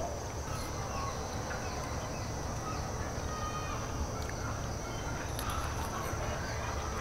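Rural outdoor ambience: scattered short bird calls over a steady high-pitched drone and a constant low rumble.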